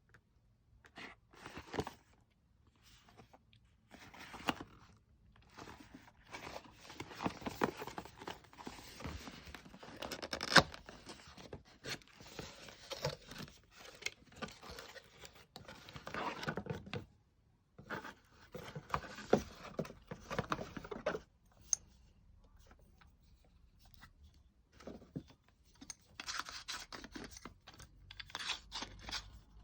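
Packaging being unwrapped and handled: irregular rustling, tearing and scraping, with scattered clicks and a sharp knock about ten seconds in.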